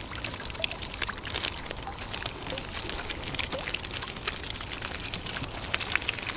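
Water trickling and dripping out of a mesh keepnet as it is lifted from the water, with many small scattered drips and ticks.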